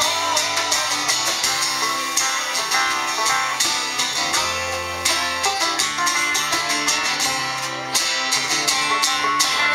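Live country band playing an instrumental break without vocals: guitars over a steady drum-kit beat.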